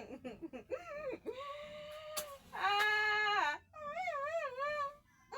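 A small child whining and crying in a run of drawn-out, wavering wails, one held longer near the middle.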